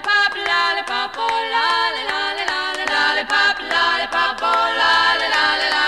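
Background music: high-pitched a cappella singing in quick, short notes.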